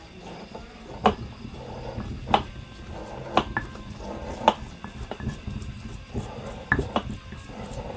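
Sharp knocks of a kitchen utensil striking a hard surface while food is prepared, about one a second at first, then quicker and less regular in the second half.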